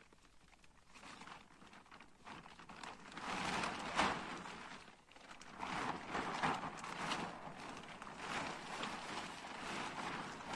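Black plastic tarp rustling and crackling as it is unfolded and shaken out, coming in uneven swells after a quiet first couple of seconds, with a sharp snap about four seconds in.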